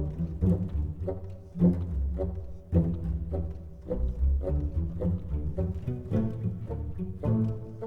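Background music with a deep bass line and a regular pulse of notes.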